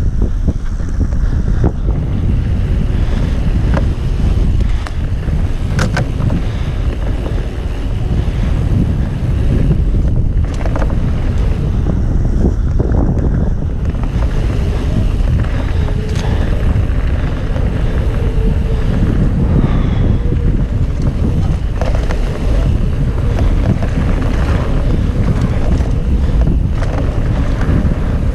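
Wind buffeting the microphone and mountain bike tyres rolling fast over a dirt trail, a steady loud rush. A few sharp clicks and rattles from the bike come through it.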